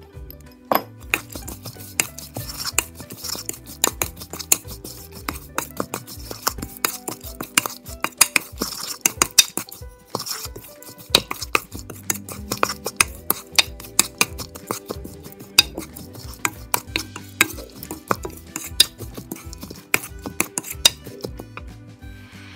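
Wooden spoon stirring and tossing shredded green mango salad in a ceramic bowl, knocking and scraping against the bowl in quick, irregular clicks, with a brief pause about ten seconds in.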